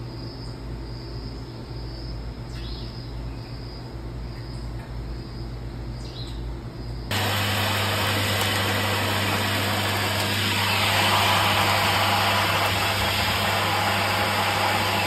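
A vacuum's hose and PVC pipe nozzle sucking up sand and soil: a loud, steady rush of air over a low motor hum, which starts suddenly about halfway in. Before it there is only a steady low hum with a few faint high chirps.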